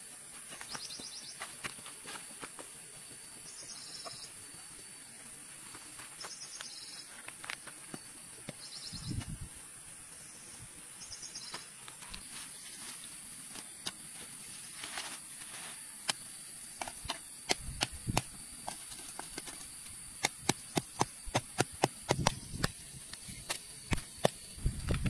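Claw hammer knocking wooden stakes into the ground around a stone fire pit: a run of sharp knocks, several a second, through the second half. Behind it insects buzz steadily, with short chirps repeating every couple of seconds in the first half.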